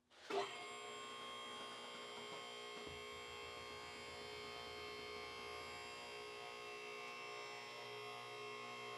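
Max Jax mid-rise lift's electric hydraulic power unit switching on with a click just after the start, then running with a steady hum as it pumps fluid to raise the lift.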